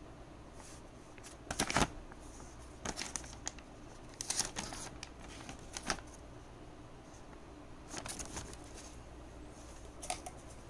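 A paper instruction leaflet rustling and crinkling as it is handled, unfolded and turned over, in several short bursts.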